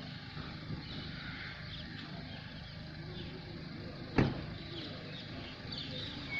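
Open-air ambience: a steady low rumble with faint bird chirps, and one sharp knock about four seconds in.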